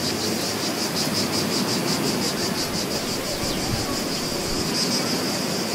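Beach ambience soundtrack: a high, rapid, steady insect chirping over an even wash of surf noise.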